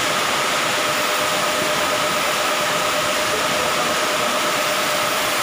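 Air compressor running steadily for a spray-painting setup: an even hiss with a constant whine that does not change.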